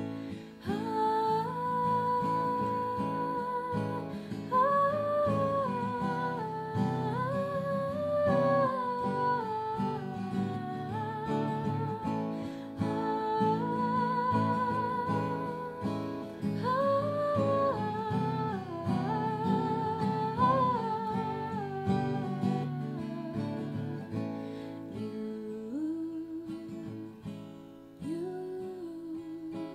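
Acoustic guitar strummed under a woman's wordless sung melody, humming-like, with vibrato on the held notes.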